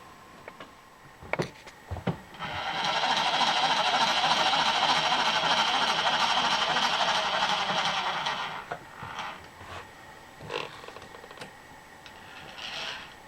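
A milling cutter cutting into metal stock for about six seconds, steady and loud, with a couple of sharp knocks before it starts and a few small clicks after it stops.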